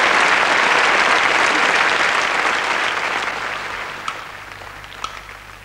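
Theatre audience applauding, the applause slowly dying away. Near the end, two sharp knocks about a second apart start an even percussion beat.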